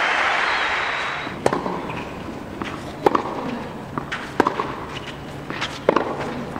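Crowd applause dying away over the first second, then a tennis rally on a clay court: four sharp racket strikes on the ball, about one and a half seconds apart, with fainter ball bounces between them.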